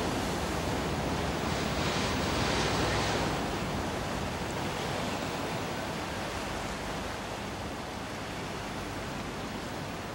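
Wind and sea water rushing past a coastal ship under way: a steady noise that eases a little after about three seconds.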